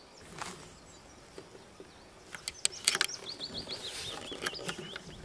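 Wild birds singing, with a quick run of short chirping notes in the second half. Just before the chirps come a few sharp clicks or knocks.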